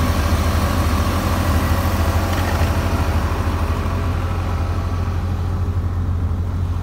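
Tractor's diesel engine running steadily with a low hum while its rear-mounted flail mower cuts grass; the higher noise thins out over the last few seconds.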